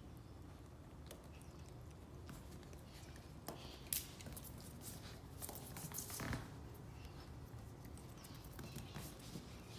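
Faint, scattered clicks and taps from a Parson Russell Terrier puppy mouthing a brussels sprout and scrabbling on a blanket and hardwood floor. One sharp click comes about four seconds in, and a cluster of louder taps comes around six seconds.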